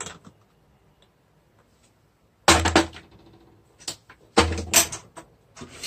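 Steel pressure cooker being set down on a gas stove: two heavy metal clunks about two seconds apart, with a few lighter knocks and clicks near the end.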